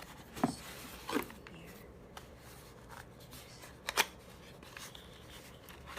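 Packaging and small accessories being handled: a few short rustles and knocks, the sharpest about four seconds in.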